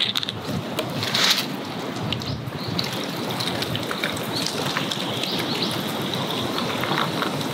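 A drink poured in a thin stream over ice into a tall glass, giving a steady crackling hiss with small ticks as the glass fills.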